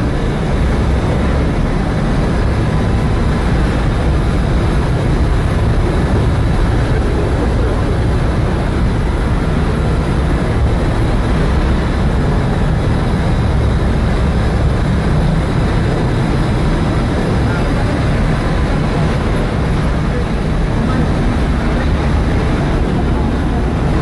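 Constant loud drone of a ship's main engine and engine-room machinery, heavy and low, with a faint steady whine riding on top.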